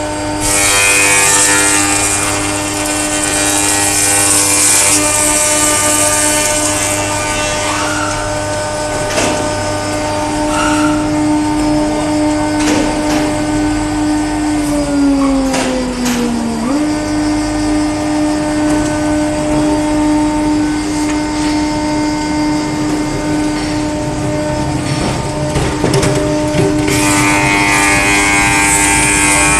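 Double-sided wood planer running with a steady machine hum and a high hiss that is strongest near the start and again near the end. Around the middle its pitch sags for about two seconds, then snaps back up.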